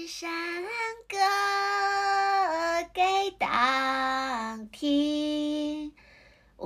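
A high voice singing a slow melody in long held notes, without accompaniment. The singing pauses briefly about a second before the end, then starts again.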